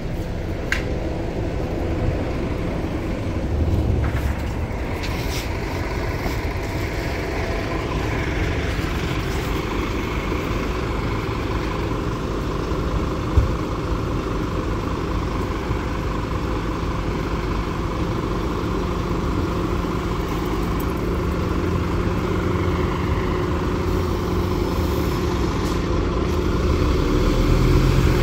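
Scania city bus's diesel engine and drivetrain running steadily as the bus drives, heard from inside the passenger cabin, growing louder near the end.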